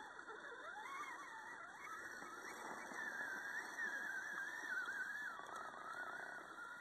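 Geared-low 55-turn brushed crawler motor and drivetrain of an HG P601 6x6 RC truck whining under throttle. Its pitch rises in the first second, then wavers up and down as the throttle changes.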